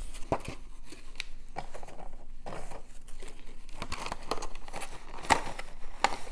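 Plastic packaging crinkling and rustling, with irregular light clicks and taps as resin model parts are handled; the sharpest click comes about five seconds in.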